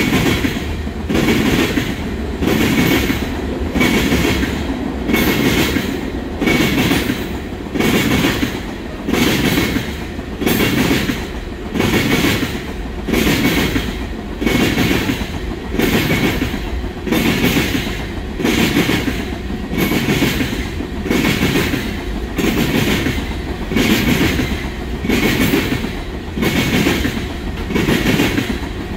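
Oil train of tank cars rolling past close by: steel wheels clacking over the rails in a steady rhythm, a little more than one beat a second as each set of trucks goes by.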